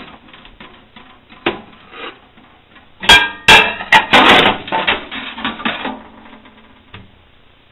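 Dishes being handled: a few light knocks, then a cluster of sharp clattering knocks about three seconds in and a couple of seconds of rattling.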